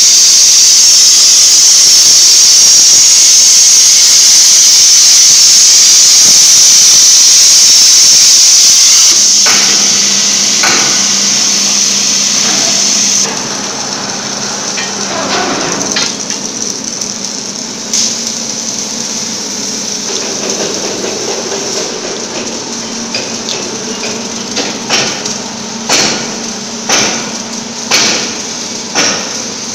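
CNC plasma cutter's arc cutting steel plate with a loud steady hiss, which weakens about nine seconds in and stops a few seconds later. After that comes a low steady hum with scattered metal clicks and knocks, which become sharp knocks about once a second near the end.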